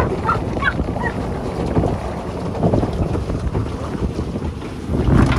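Wind buffeting the microphone in a steady low rumble, over water churned by a pedal boat, swelling louder near the end.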